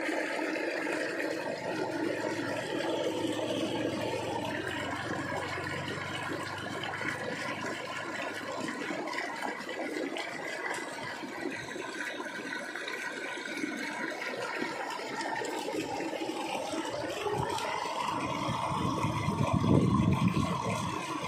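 Channel water pouring off a sheet spout and splashing into water in a cylindrical loach trap, a steady rush that grows louder near the end.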